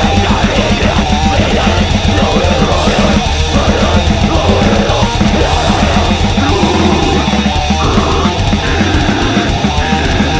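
Heavy metal band recording: distorted electric guitars and drums played loud and fast, with a rapid, even drum pulse throughout.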